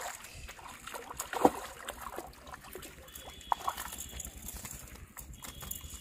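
A hooked fish splashing and thrashing in the water as it is hauled in on a rod, with several sharp splashes, the loudest about a second and a half in.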